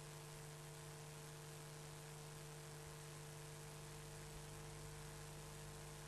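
Near silence: a faint steady electrical hum with background hiss.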